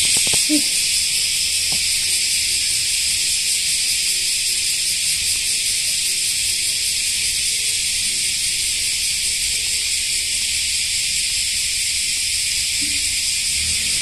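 A chorus of cicadas buzzing steadily, a dense high-pitched drone that never lets up, loud enough to drown out talk.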